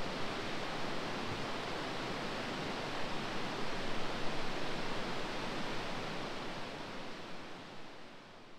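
A steady, even rushing noise with no distinct events, fading away over the last few seconds.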